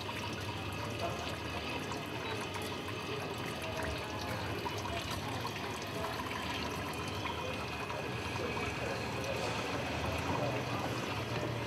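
Steady trickle of water running from a tube into a glass water tank, circulated by a small submersible pump, over a low steady hum.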